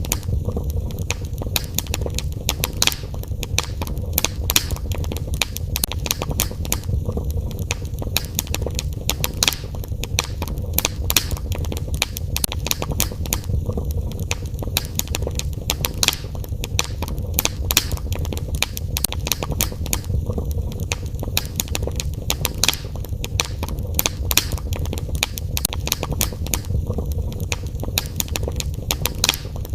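Wood fire crackling in a fireplace: a dense run of irregular sharp pops and snaps over a steady low rumble.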